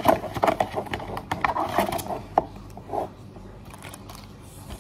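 Handling noises from food and utensils at close range: a quick run of short clicks, knocks and scrapes for the first two and a half seconds or so, one more near the three-second mark, then only faint rustling.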